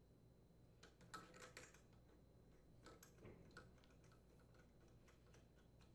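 Near silence with faint small metal clicks in two short clusters: a bolt and a mounting post being fitted and threaded by hand into a Honda small engine's ignition coil mount.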